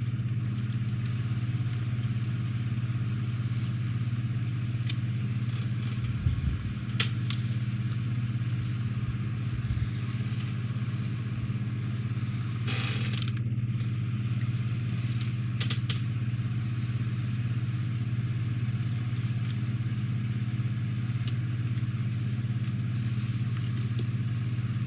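A steady low hum of room noise, with scattered faint clicks and a short rustle of small plastic model parts and wire leads being handled, the rustle about halfway through.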